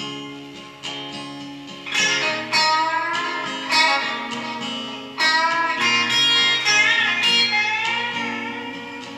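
Electric guitar playing a lead line of sustained notes, several of them bent and wavering in pitch, over an acoustic guitar's chords.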